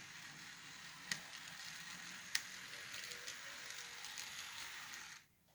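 Bachmann Spectrum N scale locomotive running on the track, a faint steady whir and hiss from its motor and wheels, with two sharp clicks about one and two and a half seconds in; it starts and stops abruptly.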